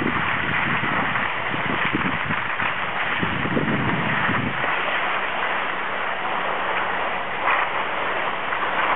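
Skis hissing over hard-packed snow with wind rushing over the microphone, low gusts buffeting it through the first half.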